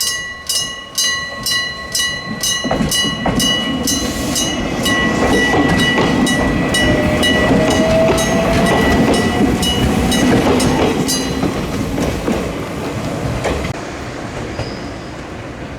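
Mechanical electric-bell level-crossing warning, a real gong struck by a hammer, ringing at nearly three strokes a second and stopping about 11 seconds in. An electric train passes over the crossing, its wheels clattering over the rail joints, then fades away.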